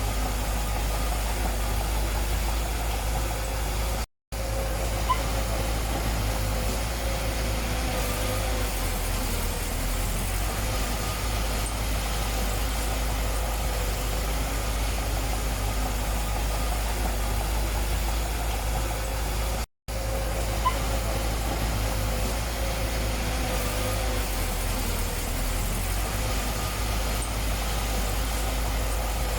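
Diesel engine of heavy earthmoving machinery (dump truck or bulldozer) running steadily at low revs. The sound cuts out for a split second twice, about four seconds in and about twenty seconds in.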